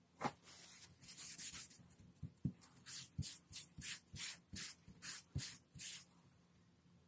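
Fingertips and a folded tissue rubbing back and forth over the back of a kraft-paper card pressed onto an inked gelli plate, burnishing it to pick up the print. There is a short knock at the start, then a quick run of scratchy rubbing strokes, about two to three a second, for some five seconds.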